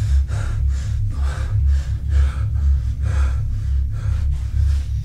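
A person breathing hard and fast, short gasping breaths at about two to three a second, over a steady low hum.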